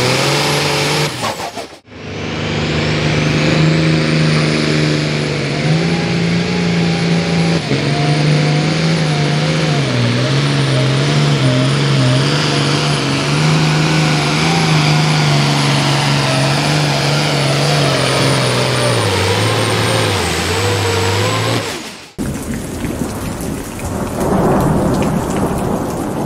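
Turbocharged 466-cubic-inch diesel engine of a Light Limited pulling tractor running at full power under load. A high turbo whistle sits above the engine, whose pitch steps up and down as it pulls. After a short gap about two seconds in it runs on, then breaks off near the end into a steady rushing noise.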